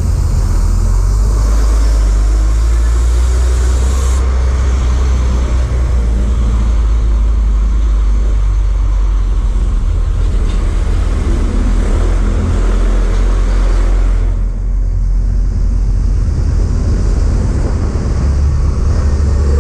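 Motorcycle riding through road traffic past large trucks: a steady low rumble of engine, road and wind noise with traffic around it, easing briefly about three-quarters of the way through.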